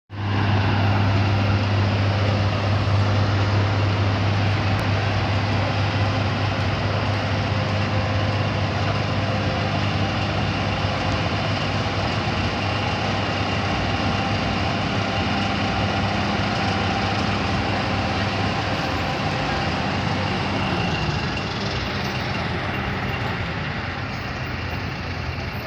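A ship's diesel engine running steadily with a loud, deep drone. Near the end the hum eases and drops slightly in pitch.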